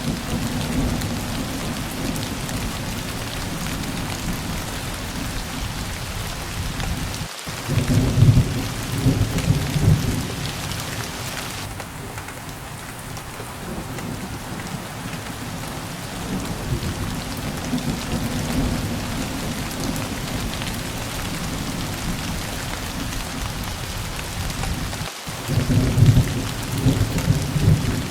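Steady heavy rain falling, with a low rumble of thunder rolling in twice, about eight seconds in and again near the end.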